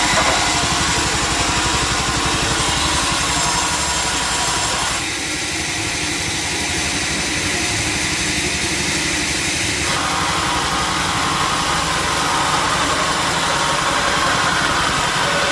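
Sawmill machinery running steadily, a loud engine-driven mechanical noise with a fast low pulsing. Its tone shifts about five seconds in and shifts back about ten seconds in.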